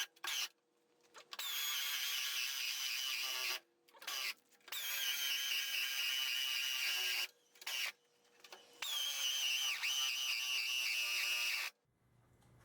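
Power drill running in three bursts of a few seconds each, its whine dipping in pitch now and then as it loads up.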